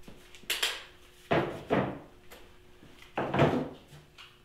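Several irregular hard clunks and knocks, the loudest about a second and a half in and again near three and a half seconds, over a faint steady hum.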